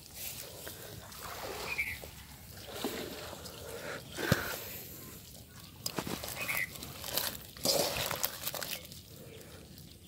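A basin of small, freshly caught fish being stirred by hand: irregular wet splashing, sloshing and slapping, with scattered sharp clicks.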